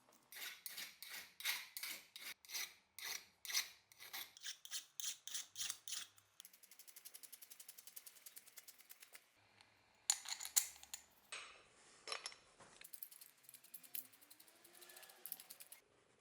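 Hand-tool work on the axe: rhythmic scraping or rubbing strokes, about two a second. These give way to a run of fast, even ticks for about three seconds, then after a short gap more loud scraping and rubbing.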